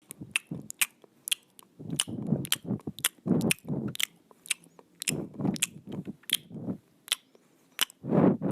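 Irregular sharp clicks mixed with louder crunching bursts, like something crisp being bitten, crushed or handled close to the microphone. It starts abruptly after silence.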